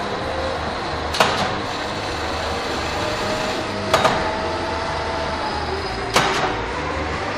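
1973 metal lathe running as it works a steel shaft: a steady mechanical run with a faint whine that wavers in pitch, and a sharp clack three times, about every two and a half seconds.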